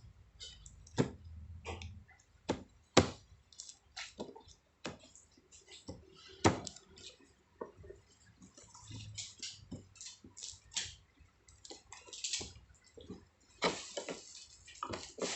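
Irregular small clicks, taps and rustles of small items and packaging being handled by hand, with a few sharper knocks and a brief rustling near the end.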